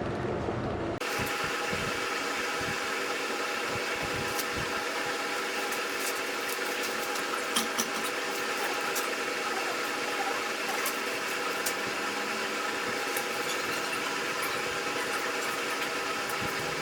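Steady machine noise, a hum of several steady tones over a hiss, with scattered sharp clicks. It starts suddenly about a second in.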